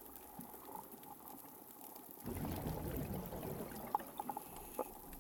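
Underwater reef ambience through a hydrophone: a constant crackle of scattered sharp clicks from snapping (pistol) shrimp over a faint water hiss. About two seconds in, a louder low rushing noise comes in, and a few short pips and sharper clicks stand out near the end.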